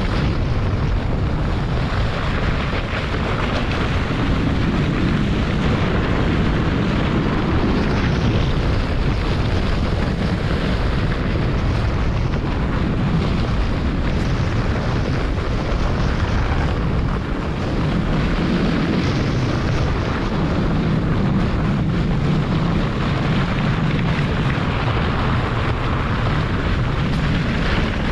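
German Luge 115 sled running down a packed-snow toboggan run: continuous rumble and hiss from the runners on the snow, with wind buffeting the microphone.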